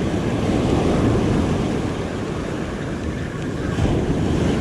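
Ocean surf breaking and washing up the sand close to the microphone, with wind noise on the mic.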